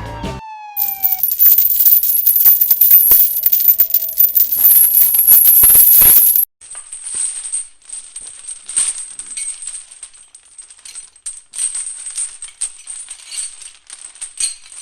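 Many small hard pieces rattling and clinking in a dense, irregular patter. It is loud for about six seconds, stops abruptly, then goes on more quietly and thins out near the end.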